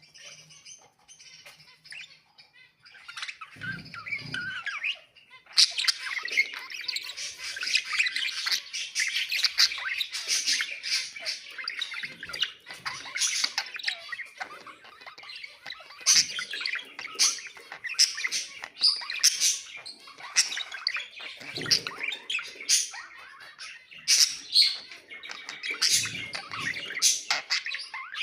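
Pet budgerigars chirping and warbling in continuous chatter, with frequent sharp squawks. It starts sparse and faint, and becomes dense and louder about five seconds in.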